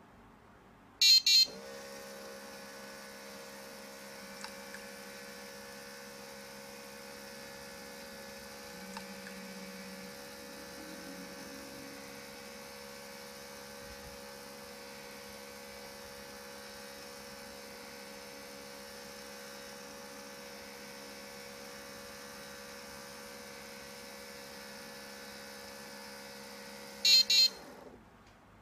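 Small electric motor of a model garage door running steadily with a hum, after two short buzzer beeps about a second in; it stops after another two beeps near the end.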